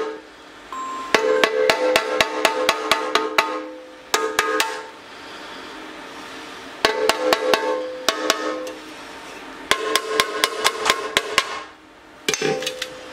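Small hammer tapping on a steel patch in a motorcycle tank to work it into shape in a corner. The blows come quickly, about five a second, in four or five runs with short pauses between, and the hollow tank rings with each one.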